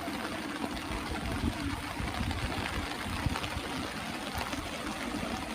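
Floodwater flowing, a steady rushing noise.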